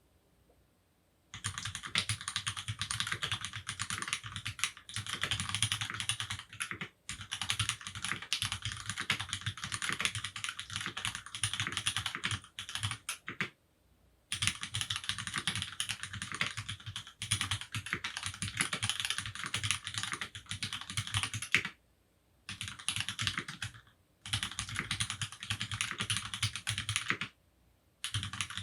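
Fast typing on a Monstargear XO K80 Alu keyboard, with hyperglide Cherry MX Black linear switches lubed with Krytox 205g0, mounted on an aluminium plate. The case is fitted without foam or other sound-dampening material. Typing starts about a second in and comes in runs of several seconds, with short breaks.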